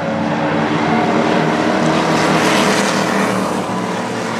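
Several stock car engines running hard on a short oval track, a dense mix of engine notes from the pack, swelling louder in the middle as cars pass close by.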